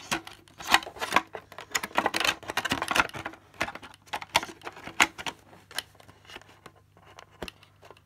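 Irregular clicks, taps and light clattering of a hard plastic RC car body shell being handled and pushed down onto a Kyosho Ultima RB6.6 buggy's chassis while the antenna is lined up with its hole.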